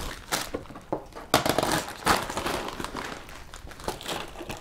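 Crinkling and rustling of plastic with irregular light knocks, as plastic items are handled and set down on a desk.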